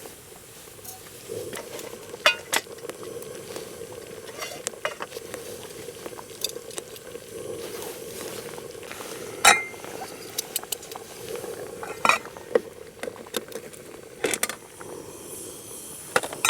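Food sizzling in a pan, with a steady hiss, while a metal utensil stirs and clinks against the cookware about a dozen times, the sharpest clink about halfway through.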